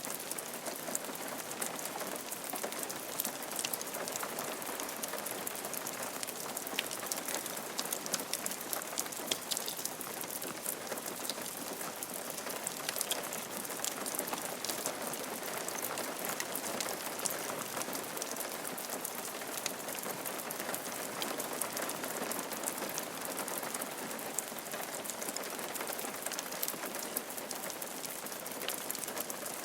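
Steady rain falling on a roof, a dense even patter of countless small drop ticks.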